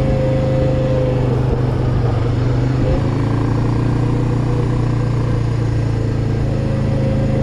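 Suzuki 400 ATV's single-cylinder four-stroke engine running steadily as the quad rides along, its pitch shifting briefly about three seconds in.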